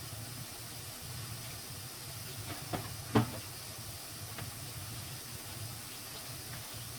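Steady hiss of food frying in a pan, with two sharp knocks about three seconds in, the second louder.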